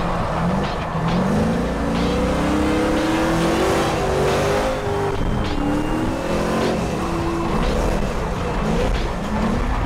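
Drift car's engine revving up and down over and over as it is driven, heard from inside the cabin.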